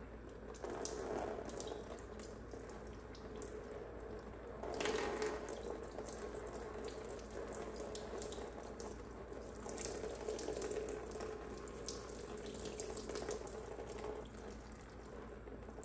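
Leftover engine fluids running out of a Porsche Cayman S 987 flat-six engine as it is turned upside down: a steady trickling, splashing flow that swells briefly about five seconds in.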